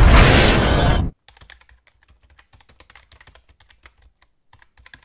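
Loud cinematic intro music cuts off sharply about a second in. Then comes faint, rapid, irregular clicking of typing on a computer keyboard, a typing sound effect.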